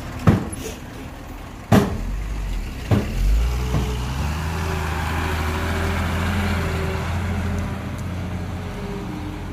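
Dump truck diesel engine running, coming up in revs about three seconds in and then holding steady. It is preceded by three sharp knocks in the first three seconds.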